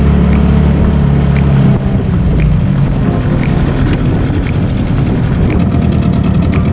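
Boat outboard motor running steadily at low trolling speed, a deep hum, with a light tick repeating about once a second.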